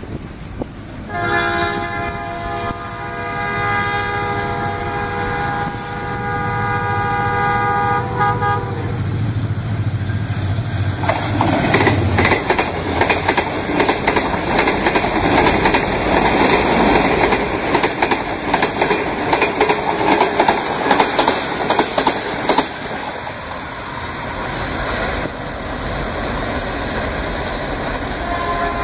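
A model diesel freight train: a multi-note diesel-style train horn sounds steadily for about eight seconds. Then comes the loud rolling clatter of the locomotives and freight cars on the track, dense with rapid clicks, easing off a little in the last few seconds.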